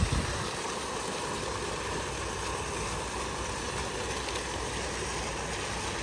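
Fountain water splashing and falling in a steady, even hiss, with a low rumble beneath it.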